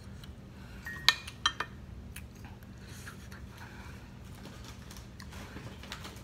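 A few sharp clinks, a spoon knocking against a glass bowl, three close together about a second in, over a steady low room hum.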